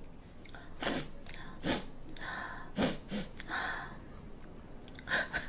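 A woman's short, breathy puffs and exhalations close to the microphone, several in a row over a few seconds.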